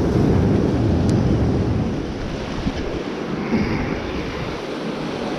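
Sea swell breaking and washing over shoreline rocks, mixed with wind buffeting the microphone. Loudest for the first two seconds, then easing a little.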